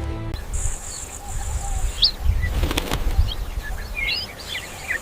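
Bird wings flapping in low whooshing beats, with small birds chirping in short high calls from about two seconds in and a steady high hiss behind.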